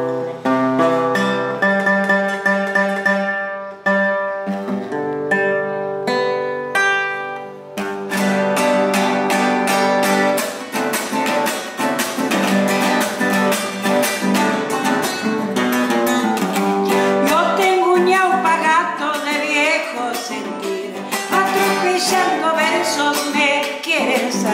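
Nylon-string acoustic guitar playing the introduction to a gato, an Argentine folk dance song. It starts with picked single notes and chords, then switches to a steady strummed rhythm about eight seconds in. A woman's singing voice joins in over the strumming in the last third.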